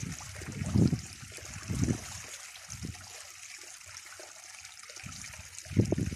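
Water running down a homemade highbanker sluice and pouring off its end into a bucket, a steady trickling splash. A few short low bumps come through it, the loudest near the end.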